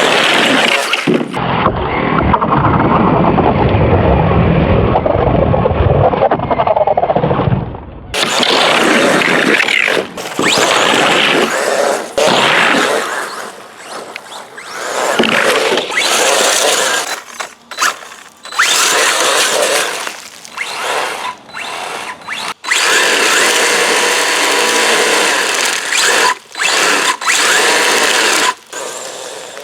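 RC truck on chainsaw-chain wheels driving hard: the brushless motor's whine and the chain treads scraping and chewing at the ground. The sound comes and goes, with abrupt changes where clips are cut together.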